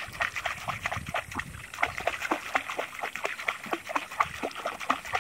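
A hooked barbel (sharptooth catfish) splashing at the water's surface on a taut fishing line, a quick irregular run of small splashes.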